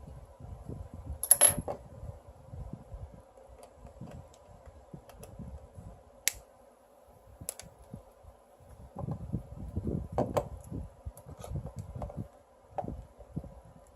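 Small metal parts of a rebuildable dripping atomizer clicking and clinking as they are handled during a rebuild. One sharp ringing clink comes about a second and a half in, followed by scattered lighter clicks and low handling rubs.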